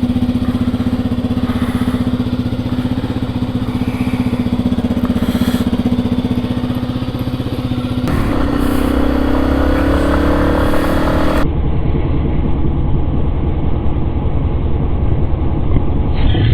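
Yamaha XT250 dual-sport motorcycle's single-cylinder four-stroke engine running steadily, then revving up with a rising pitch about eight seconds in.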